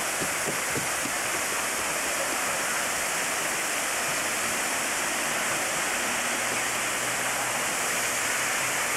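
Small cascade of water spilling over a rock ledge into a pond: a steady rush of falling, splashing water.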